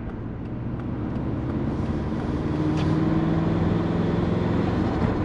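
Turbocharged Subaru EJ20 flat-four in a Forester running under way as the car is driven. Its steady drone firms up into a stronger, even hum about two seconds in.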